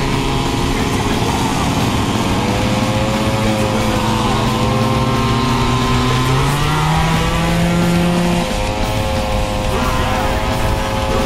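Several small two-stroke moped engines running together, each at its own pitch, the pitches wandering as they are throttled. About six and a half seconds in, one engine rises in pitch, then drops out about two seconds later.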